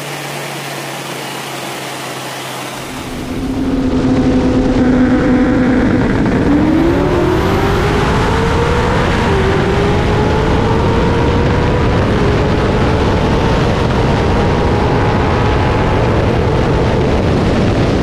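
Car engine at full throttle, heard from inside the cabin during a high-speed roll race: a steady cruising note, then about three seconds in it gets much louder and its pitch climbs steadily, with one short dip about nine seconds in, over heavy road and wind noise.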